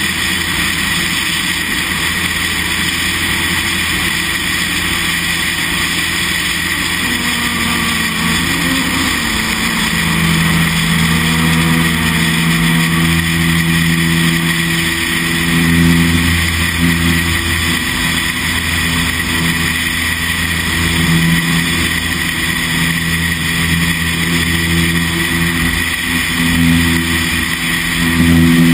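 Piston engine and propeller of a high-wing single-engine light aircraft running at full power through the take-off roll and climb-out, over a steady rush of air. The engine tone shifts in pitch about nine to ten seconds in.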